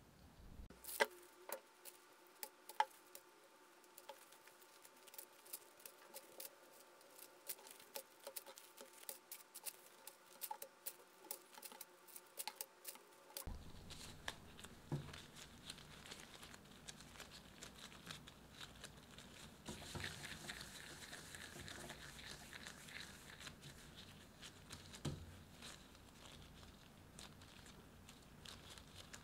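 Bread dough being handled on a work surface. For the first half there are many sharp, irregular clicks and taps. After that comes softer rustling of disposable gloves and a plastic bench scraper as the dough is divided and rounded into balls.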